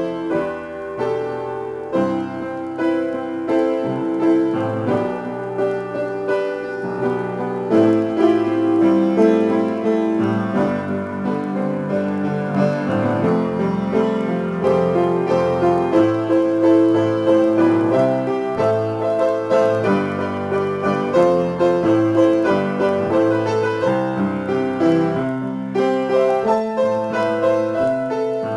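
Upright piano played solo: an improvisation in A minor, with many notes struck in quick succession and left ringing into one another.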